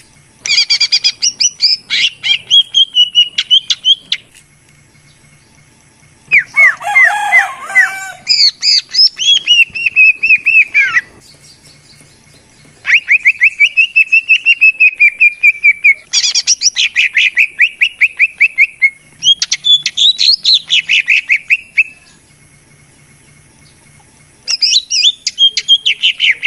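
Greater green leafbird (cucak ijo) song from a lure recording: loud phrases of rapid, repeated whistled notes, each a few seconds long, separated by short pauses.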